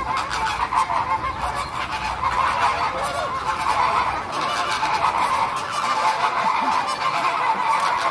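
A flock of waterfowl honking and calling together, many voices overlapping in a steady, dense chorus.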